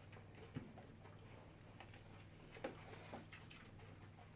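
Near silence: a few faint clicks of people eating, over a low steady hum.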